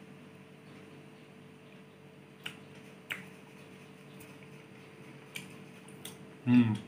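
A few sharp, separate clicks as a person chews and tastes food from a spoon, over a faint steady hum, with a brief voiced sound near the end.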